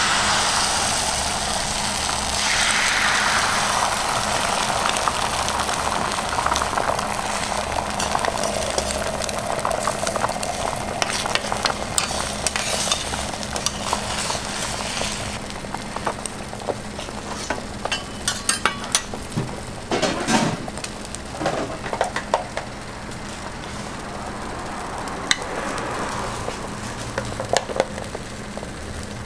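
Beaten egg poured onto a hot flat griddle inside a square steel mould, hitting the metal with a sudden loud sizzle that sinks in pitch and settles into a steady frying hiss. Scattered light clicks and taps come midway, with a faint steady hum underneath.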